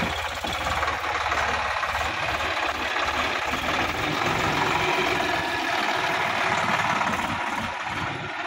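Sonalika DI-50 RX tractor's diesel engine running as the tractor drives past close by. It grows louder as the tractor nears and eases off a little near the end as it moves away.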